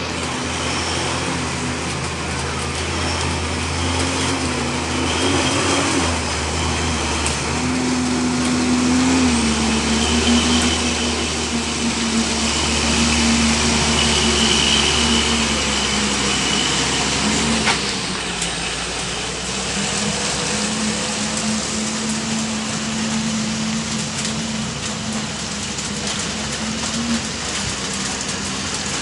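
Heavy truck's diesel engine running, loudest about a third of the way in and easing off after the middle as a Hino tank truck passes close, over a steady hiss.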